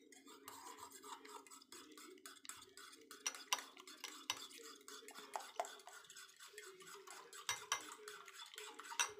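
A metal spoon beating raw egg mixture with chopped vegetables in a bowl, clinking quickly and unevenly against the bowl's sides, with a few sharper knocks, over a steady low hum.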